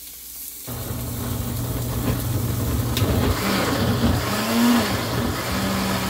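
Countertop blender switched on about a second in and running, puréeing raw tomatoes, garlic and water into a sauce. Its motor hum dips and wavers in pitch midway, then settles steady.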